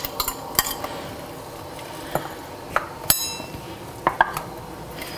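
Kitchen clatter: a scattering of light clicks and knocks of a ceramic bowl and utensils against a stainless steel pot, with one ringing clink about three seconds in, over a steady background hiss.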